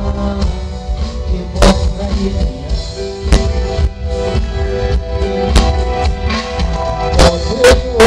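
Live rock band playing: electric guitar, bass guitar, keyboard and drum kit, with sharp drum and cymbal hits every second or two over a heavy bass line.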